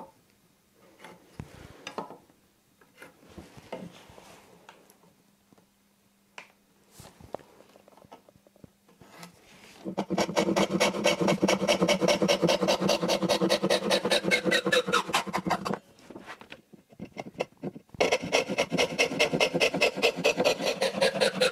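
Handsaw cutting through wooden board dividers in fast back-and-forth strokes, in two runs about halfway through with a short pause between. Before that there are only faint knocks and handling over a low hum.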